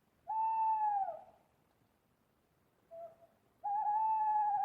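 Owl hooting: a long hoot that falls away at its end, a short quiet note, then a second long, wavering hoot.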